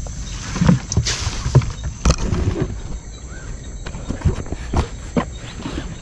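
Footsteps through wet grass and shallow water, with rustling plants, splashes and the knocks of a plastic jug being picked up and carried; the sounds come irregularly. A steady high insect drone runs underneath.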